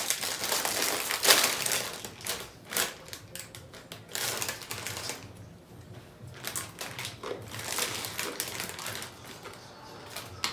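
A plastic bag of sweet potato chips being pulled open, with dense crinkling and a sharp rip about a second in. After that come scattered crinkles of the bag and crunching as chips are bitten.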